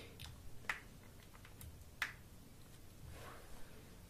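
Faint, sharp clicks and taps of hands handling a Samsung Galaxy S3 Mini's plastic body, a handful spread out, the clearest about two seconds in.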